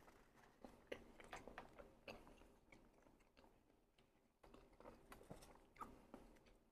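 Faint, close-up sound of a person chewing a chili cheese dog: irregular wet mouth clicks and smacks, with a few louder bites.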